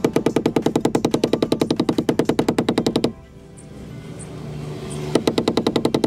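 Rubber mallet rapidly tapping through a towel on a rear step sill plate, knocking it lower so the power tailgate no longer catches on it. A fast, even run of ringing strikes stops suddenly about three seconds in, and the tapping starts again near the end.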